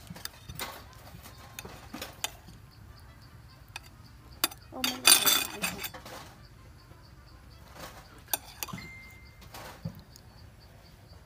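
Metal spoon clinking and scraping against a ceramic plate of eel soup: scattered light knocks, with a louder, longer scrape about five seconds in.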